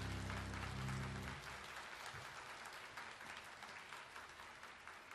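Concert audience applauding, with the music's final held chord cutting off about a second and a half in; the applause then fades away.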